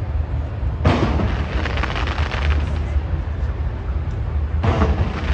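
Aerial fireworks: a sharp burst about a second in, followed by a spell of dense crackling, and another burst with crackling near the end, over a steady low rumble.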